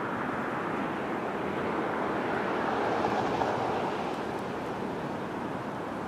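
Distant engine noise of a passing vehicle: a steady rushing hum that swells about halfway through and eases off again.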